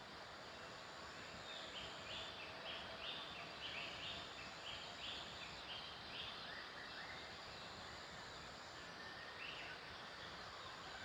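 A bird calling in runs of short repeated notes, about three a second, over a steady background hiss, with a thin high buzz coming and going.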